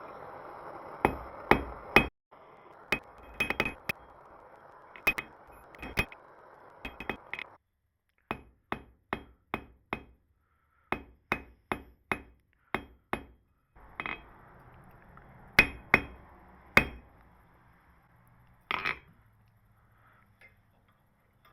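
Hand hammer striking a small piece of near-pure gold on an anvil: sharp single blows, roughly two a second, in runs broken by short pauses, with the last blows near the end. A steady hiss runs under the first third and again later.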